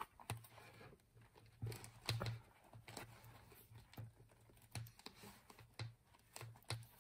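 Faint handling noise: soft, irregular taps and brief rubbing as a notebook in a clear plastic cover is slid in and out of a leather planner cover.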